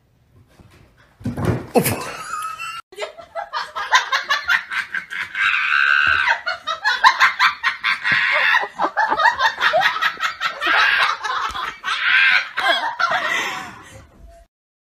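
A person laughing hard in long, high-pitched fits from about three seconds in, fading out just before the end. A short loud rush of noise comes about a second in.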